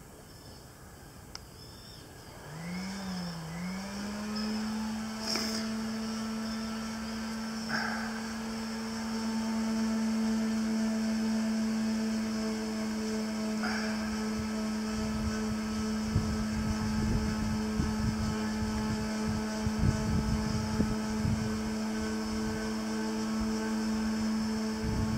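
A motor starts about two and a half seconds in, its pitch wavering briefly before settling into a steady hum that runs on. A few sharp clicks come through it, and low rumbling comes and goes in the second half.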